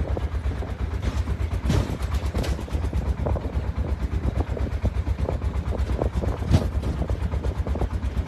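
Truck engine running with a fast, low, even chugging while hauling a load of freshly harvested wheat.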